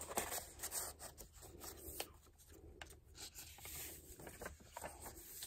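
Faint rubbing and rustling of paper as hands slide a card into a paper envelope and turn the pages of a handmade junk journal, with a few small ticks.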